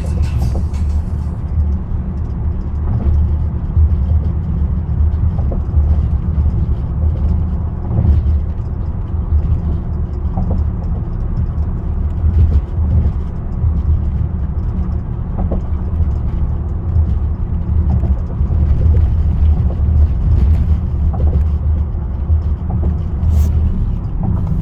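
2020 Lincoln Aviator making a steady low rumble, with faint, short clicks every couple of seconds at an irregular pace. This is the unexplained clicking the owner reports and the dealer says they cannot hear.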